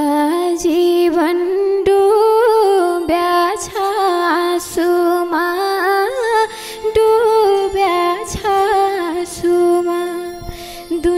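A woman sings a slow Nepali dohori folk melody into a microphone. She holds long notes and ornaments them with wavering turns that rise and fall, with little else beneath the voice.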